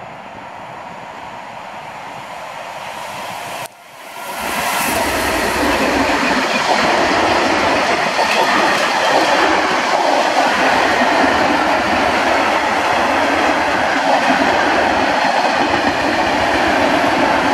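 Freight train of tank wagons, hauled by a Traxx electric locomotive and a TEM2 diesel, coming closer and then passing close by. The sound grows steadily, breaks off sharply for a moment about four seconds in, then holds as a much louder, steady running noise of the wagons going past.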